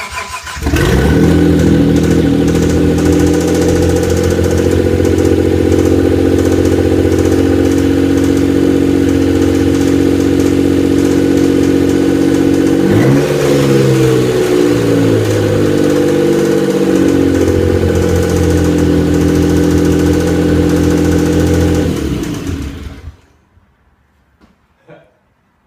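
Dodge Stealth twin-turbo 3.0 L V6 cranking briefly and catching, idling steadily, revved once about halfway through with the pitch rising and falling back, then shut off a few seconds before the end. The engine has just been brought back from a hydrolock and has lifter tick.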